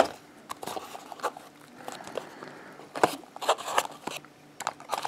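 Cardboard box being opened and handled: irregular clicks, taps and rustles of the flaps and the cardboard insert as a small FPV camera is lifted out, the sharpest about 3 seconds in.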